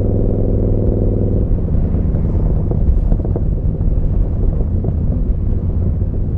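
Yamaha Bolt's air-cooled V-twin running through a Vance & Hines slip-on exhaust while riding. It holds a steady, even note for about the first second and a half, then the note breaks up into a rougher, uneven rumble.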